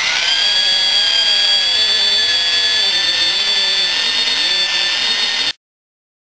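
Cylinder hone running with 280-grit stones in a two-stroke cylinder bore, taking off the last two thousandths to final size. It makes a steady whine with several high pitches over a lower tone that wavers up and down, and cuts off abruptly about five and a half seconds in.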